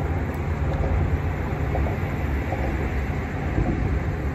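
Steady low motor rumble with a constant hum.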